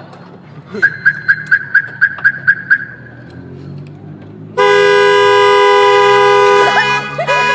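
A car horn beeps in a quick string of about nine short toots. A few seconds later a much louder two-tone horn blares for about two seconds, then tails off as voices shout near the end.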